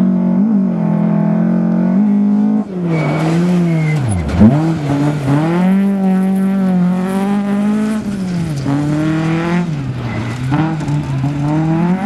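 Rally car engine at high revs on a gravel stage, its note dropping and climbing again several times as the driver lifts off and changes gear through the bends, with a hiss of tyres and gravel under it.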